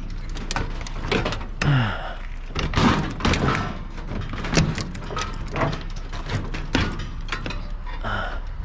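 Irregular knocks, clanks and thumps of a Mongoose bicycle's metal frame being handled and loaded onto a pile of scrap.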